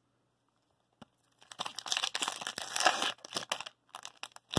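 A hockey card pack's crinkly wrapper being torn open by hand, starting about a second and a half in, with a few more short crackles near the end.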